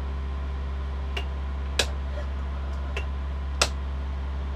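Boat console rocker switches clicking as they are pressed, four sharp clicks spaced about a second apart, over a steady low hum.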